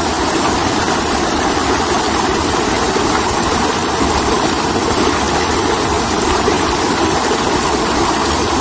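Shallow stream rushing over rocks in a small rapid, a steady, loud wash of water.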